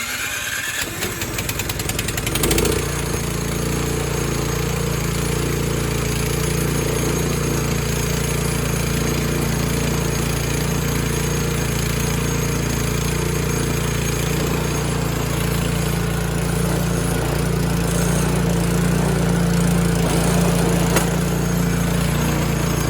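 Snowblower engine on a 2012 Troy-Bilt 21-inch electric-start machine, cranked by its electric starter. It catches after about two seconds and then runs steadily, fresh from a carburetor replacement.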